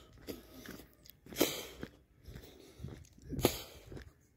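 Footsteps on a wet dirt-and-gravel track, uneven crunching steps with two louder ones about two seconds apart.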